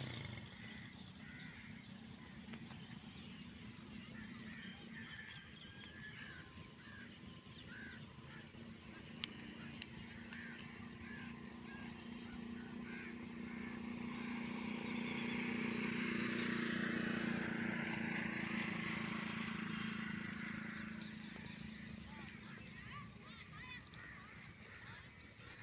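Repeated short honking or chirping animal calls in the first half, over a low engine hum that swells to its loudest about two-thirds through and then fades away, like a vehicle passing.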